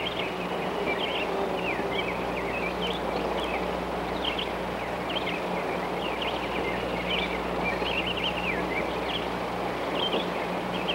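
Birds chirping in short, quick calls over a steady background hiss and low hum.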